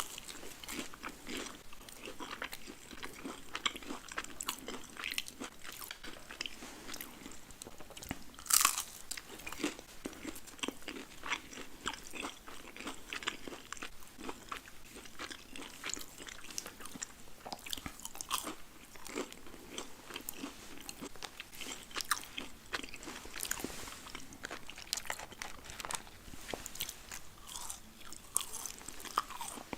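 Close-miked ASMR eating of a burger and french fries: steady crunchy bites and chewing, with one especially loud crunch about nine seconds in.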